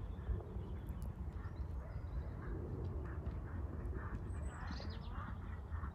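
Horse's hoofbeats at canter round a jumping course, a run of soft, evenly spaced thuds, over a steady low rumble.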